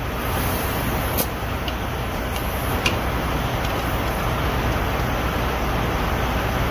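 Steady low rumble of truck engines, with a few brief hisses of air as a semi-trailer tire is aired up at the valve stem.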